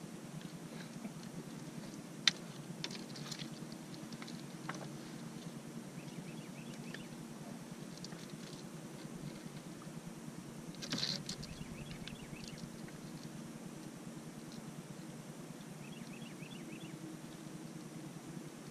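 Scattered clicks and knocks of gear being handled in an aluminium fishing boat as a catfish is readied for weighing, with one sharp click about two seconds in. Under them runs a steady low hum.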